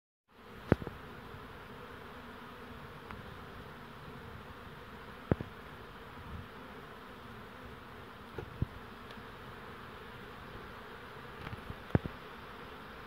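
Many honeybees buzzing steadily in flight around the hive entrances. A few short sharp clicks stand out above the hum: about a second in, about five seconds in, and twice near the end.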